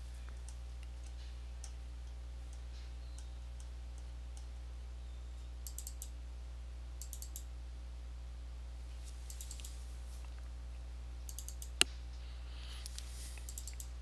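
Computer mouse clicks in quick clusters of three or four, five times over, as folders are double-clicked open, with one sharper click in the fourth cluster. A steady low hum runs underneath.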